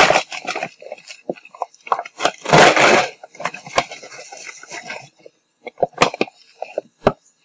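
Sugar bag rustling and crinkling as sugar is scooped out with a measuring cup, with scattered clicks and knocks; the loudest rustle comes about two and a half seconds in, then it thins to a few sharp clicks.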